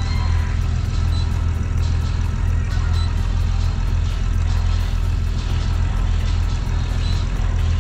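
Marine diesel engine running steadily, a constant low drone.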